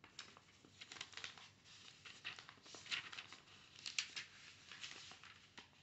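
Faint, irregular scratching and rustling, a scatter of small ticks.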